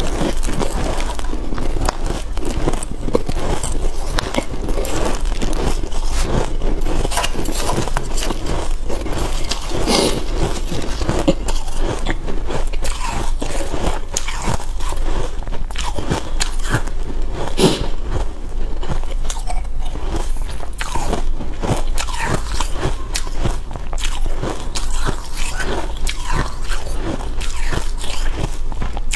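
Biting and chewing of freezer frost ice: a continuous run of crisp crunches and crackles, with a few louder bites about a third and three fifths of the way through.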